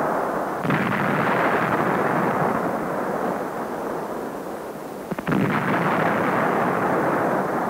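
Artillery fire: two heavy blasts, one just under a second in and another about five seconds in, each trailing off slowly. The sound is dull and muffled, as on an old film soundtrack.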